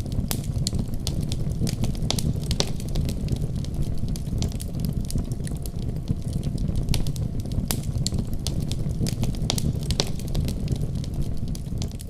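Wood fire crackling in a fireplace: a steady low rumble of the flames with frequent, irregular sharp pops and snaps.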